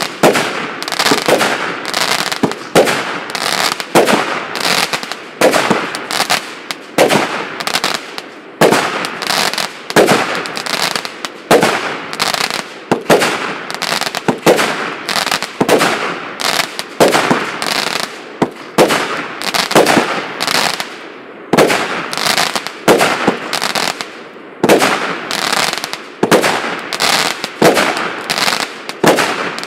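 A firework cake of 148 shots of 0.8-inch calibre firing shot after shot, about one and a half a second. Each shot is a sharp report followed by a short rush of noise, with a couple of brief gaps about three-quarters of the way through.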